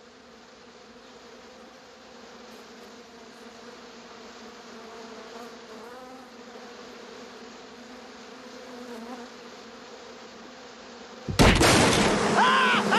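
Cartoon bee swarm buzzing with a steady hum that slowly grows louder. About eleven seconds in, a sudden loud crash as the wooden beehives are smashed, followed by a loud din.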